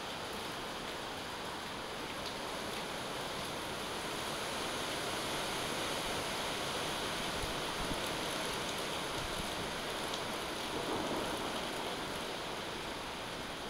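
Rain falling steadily in a thunderstorm downpour.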